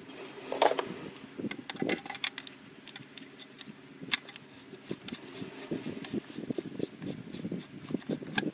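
Light metallic clicks and rubbing of a spark plug socket and hand tools being worked in the spark plug well of an Opel Astra F 1.4 engine, as a spark plug is fitted or removed by hand; the clicks come irregularly.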